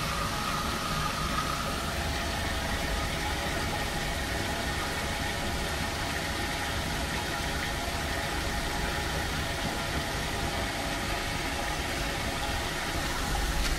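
Submersible drainage pump running steadily with an even motor hum and water rushing, emptying a flooded pit.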